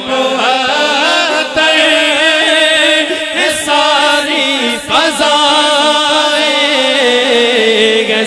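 A man singing an Urdu naat solo into a microphone, drawing one word out into a long melismatic phrase with a quavering, ornamented pitch.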